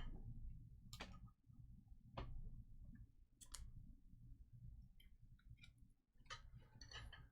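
Scattered faint clicks and light taps of trading cards being handled and flipped, a few sharp ticks spread out over a low steady hum.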